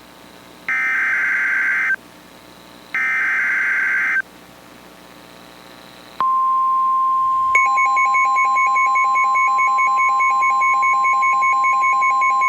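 Two bursts of the warbling SAME digital header of an Emergency Alert System message, each about a second long, then about six seconds in the steady 1050 Hz NOAA Weather Radio alert tone starts. About a second and a half later a second, rapidly pulsing beep joins it. Together they mark the start of a new alert, here a special marine warning.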